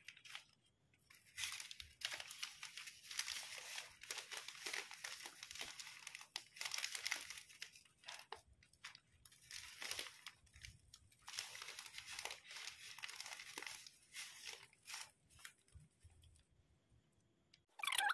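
Plastic bouquet wrapping film and spice sachets being handled, crinkling and rustling in repeated irregular bursts, with a sharp crackle near the end.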